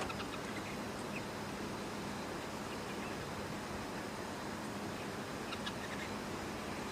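A few faint, short bird calls near the start and again near the end, over a steady background hiss.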